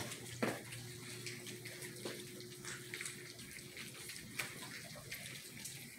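Puppies eating soft, soaked and mashed kibble: faint wet smacking, lapping and chewing with small irregular clicks over a steady low hiss.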